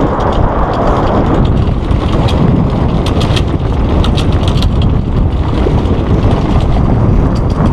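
Strong wind buffeting the microphone on a small sailboat under jib, with water rushing along the hull, as a loud, steady rumble. Scattered sharp ticks and clicks come through from about two to four seconds in.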